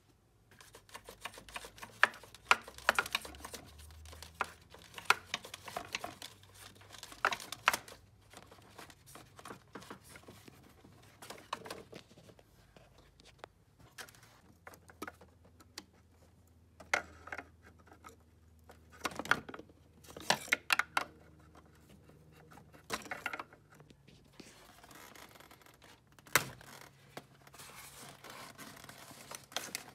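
Hands working plastic and rubber parts loose in a car's engine bay, around the dipstick tube and intake boot: irregular clicks, scrapes and knocks. The sharpest clicks cluster in the first several seconds and again a little past the middle.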